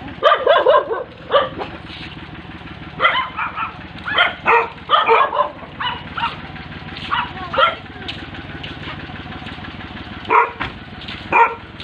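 A dog barking in repeated bursts: a quick run of barks at the start, then scattered single barks. Under it, the steady low hum of an idling vehicle engine.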